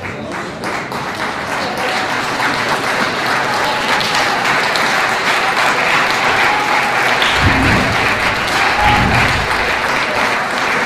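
Audience applauding steadily. Two short low rumbles come a little after the middle.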